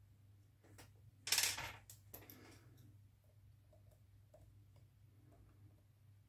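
Faint small metallic clicks and taps as a thin rod and collet are handled at a Präzima Z5 watchmaker's lathe, with one brief hissing rustle about a second and a half in and a steady low hum underneath.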